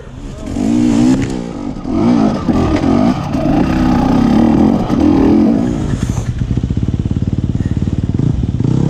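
Dirt bike engine revving up and down repeatedly, then from about six seconds in running at lower, steady revs with an even pulsing beat.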